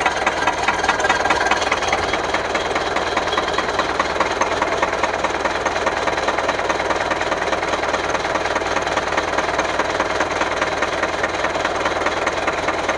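Car engine idling steadily, a continuous even clatter.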